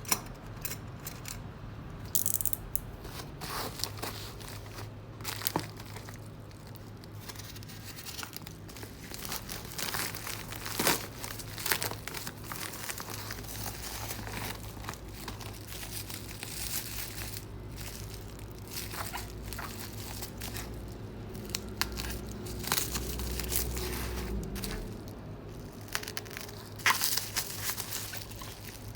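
Packaging being handled and torn open by hand: irregular crinkling and tearing with scattered sharp clicks, over a steady low hum.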